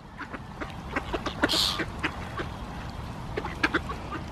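Ducks quacking in short, scattered calls, with a brief hissing burst about one and a half seconds in.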